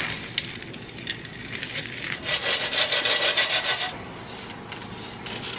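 Spatula stirring oiled pumpkin seeds across a metal baking sheet: a rough scraping rub with a few light clicks, densest from about two seconds in to four seconds in.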